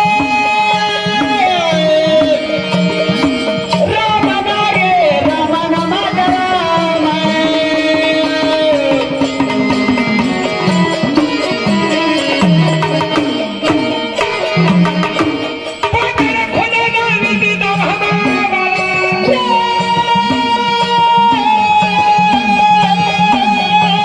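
Instrumental interlude of Marathi devotional folk music: a steady hand-drum beat under a sustained melodic lead that slides from note to note.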